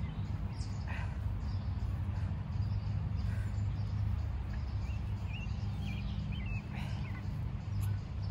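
Outdoor ambience: a steady low hum with a few faint bird chirps.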